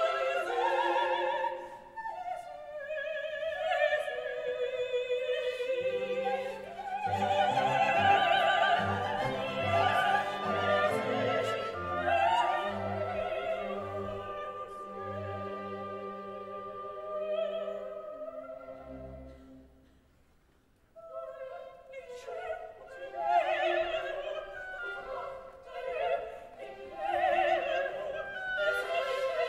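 Opera singing with orchestra. The music fades to a brief near-silence about two-thirds of the way through, then the singing and orchestra resume.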